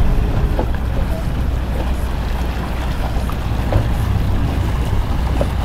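Motorboat engine running with a steady low rumble, under an even hiss of water and wind noise.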